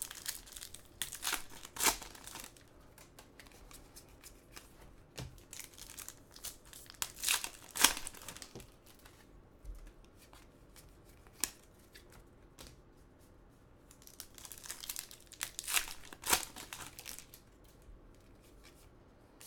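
Plastic trading-card pack wrappers crinkling and tearing in short bursts: about a second in, again around seven to eight seconds in, and again around fifteen to sixteen seconds in.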